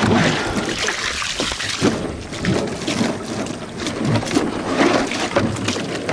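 Muddy water sloshing and pouring out of a tipped plastic kiddie pool onto the ground, heaviest in the first two seconds, then splashing in uneven surges.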